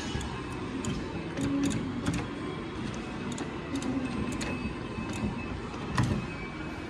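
Claw machine being played: the joystick clicks now and then while the claw's gantry motors run, over a steady mechanical hum.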